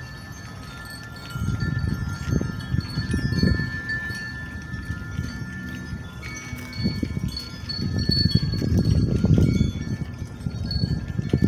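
Wind chimes ringing softly, several high tones that hang and overlap. Low rumbling gusts on the microphone come in about a second in and again from about seven seconds, louder than the chimes.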